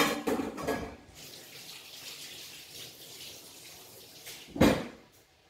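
Water running, with a loud splashing burst at the start and a second short burst near the end.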